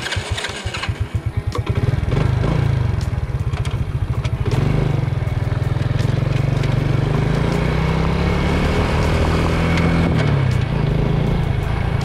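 Motorcycle engine idling with a slow, even beat, then pulling away about two seconds in and running steadily under way, with brief dips in engine speed a couple of times.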